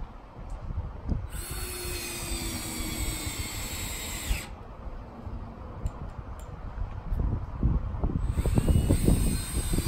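Cordless drill driving screws through a steel strap hinge into a wooden fence gate. It runs twice: once about a second in for about three seconds, its whine falling as it stops, and again near the end.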